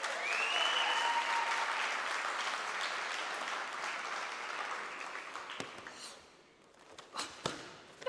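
Crowd applauding and cheering, dying away after about six seconds, followed by a few sharp slaps.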